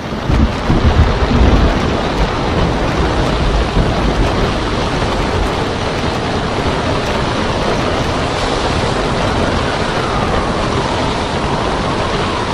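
Storm at sea: a steady roar of wind and breaking surf, with a heavy low rumble in the first couple of seconds.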